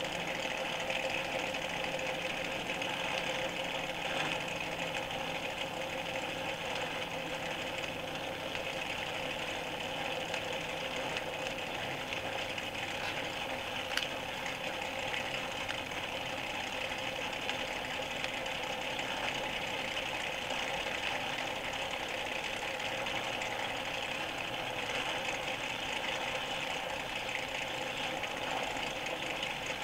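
The V8 engines of a 1964 NASCAR stock-car field running together in a steady drone, heard off an old phonograph record, with a single sharp click about halfway through.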